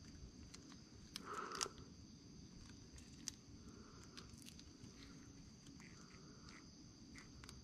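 Near silence with faint small clicks and rustles of gloved hands fitting a sealant-coated gasket over the oil pump studs; a slightly louder rustle comes about a second and a half in.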